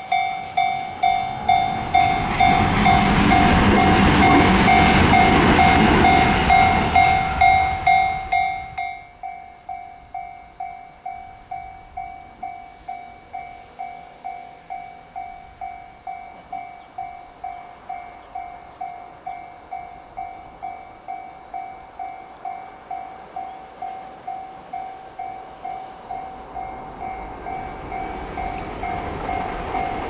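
A level-crossing alarm dings steadily, about one and a half to two times a second. An electric local train runs past close by for the first several seconds, loud with rail and running noise, and the sound cuts off suddenly. Near the end a second train's running noise builds as it nears the crossing.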